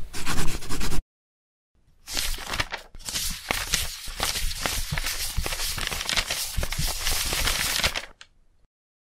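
Paper rustling and crinkling sound effect, dense with many small crackles for about six seconds, then stopping abruptly. It is preceded by a short loud burst of noise lasting about a second.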